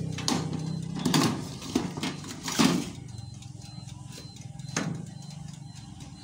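Metal baking tray scraping and knocking against a toaster oven's wire rack as it is slid in: a few short clatters in the first three seconds, the loudest near the end of them, then one more knock about five seconds in.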